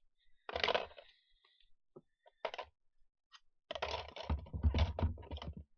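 Hard plastic toy kitchenware being set down and knocking about in the plastic drawer of a doll-kitchen toy fridge. A short clatter comes about half a second in, a single knock follows, and a longer run of clattering and thumps fills the second half.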